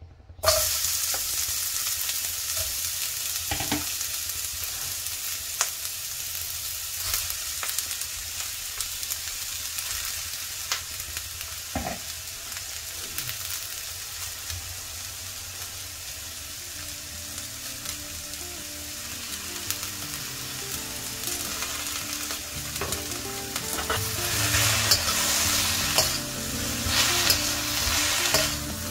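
Shredded cabbage and carrots sizzling in hot oil in a steel wok. The sizzle starts abruptly about half a second in and holds steady, and in the last few seconds the vegetables are stirred and tossed, with a louder, busier sizzle and scraping against the wok.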